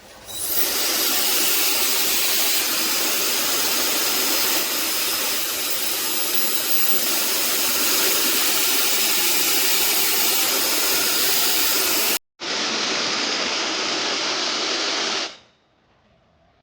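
Slopehill ionic hair dryer running, a steady rush of air with a faint high whine above it. It cuts off abruptly about twelve seconds in, resumes at once sounding duller, and stops about three seconds later.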